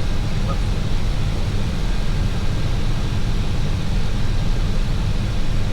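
Steady flight-deck noise inside an Airbus A321 cockpit in flight: a constant low rumble under an even airflow hiss.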